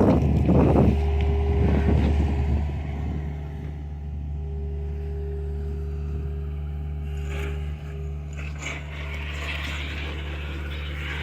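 John Deere excavator's diesel engine running steadily, louder and rougher for the first two and a half seconds before settling to a steady run. A few brief clicks and a hiss come near the end.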